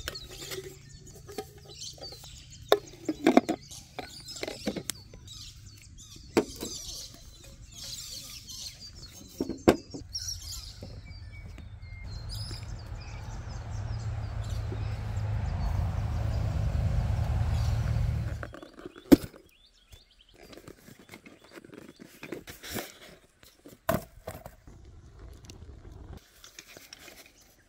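Handling noise from a compact camping gas stove's parts being fitted together and packed: scattered clicks and knocks of plastic and metal pieces. Midway a low rumble swells for several seconds and cuts off suddenly, followed by a sharp click and a few quieter clicks.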